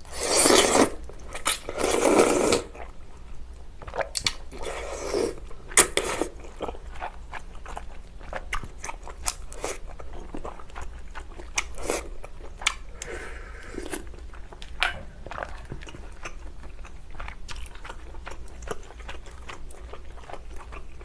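Slurping of glass noodles and spicy broth, twice in the first three seconds, then steady chewing with many small wet clicks and a few softer slurps.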